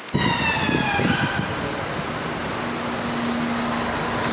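Busy street traffic: a steady rush of passing vehicles, opening with a whine that falls slowly in pitch over about a second and a half as a vehicle goes by close.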